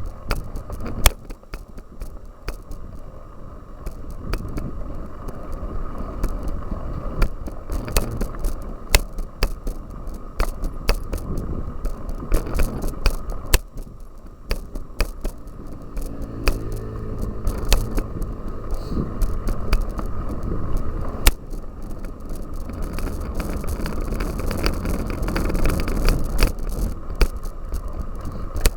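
Cyclocross bicycle being ridden over rough ground: chain and frame rattling with many sharp clicks and knocks, over a steady low rumble.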